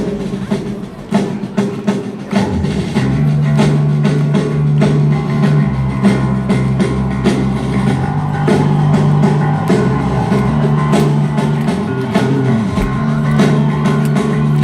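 Live rock band playing, drum kit beating steadily with guitar, and a heavy bass line coming in about three seconds in.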